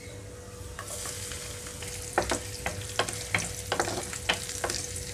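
Crushed garlic, tempering seeds and dried red chillies sizzling in hot oil in a pan, the hiss swelling about a second in. From about two seconds in come irregular sharp pops and clicks of the seeds spattering and a spoon stirring against the pan.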